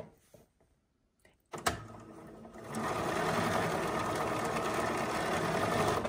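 BERNINA B 770 Quilter's Edition sewing machine stitching a seam. After a click about a second and a half in, it runs slowly at first, then at a steady full speed from about three seconds in until the end.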